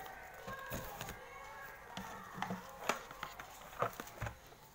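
Handling of a smartphone's packaging: paper inserts and the box are handled by hand, with several sharp taps and knocks as the contents are taken out.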